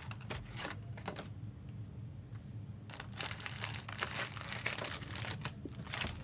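Plastic wrapping on trading-card boxes and packs crinkling and tearing as they are opened by hand, in irregular rustles that grow busier about halfway through.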